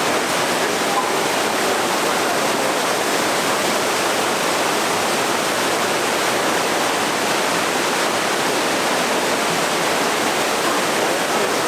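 Waterfall in a rocky river gorge, a steady loud rush of heavy water swollen by recent rain.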